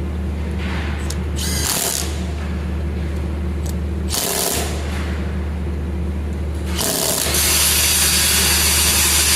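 Cordless 3/8-inch drive Milwaukee impact wrench hammering bolts tight: two short bursts, then a longer, louder run starting about seven seconds in, over a steady low hum.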